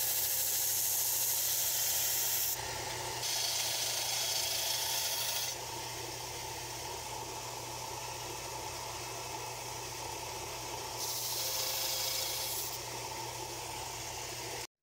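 A small vertical belt sander running while a metal base plate is ground against its narrow belt, giving a steady grinding hiss. The hiss steps louder and softer in stretches and cuts off abruptly just before the end.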